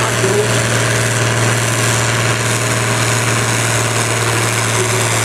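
Steyr 1100 tractor's diesel engine running steadily under heavy load while it pulls a weight-transfer sled, holding one constant engine speed.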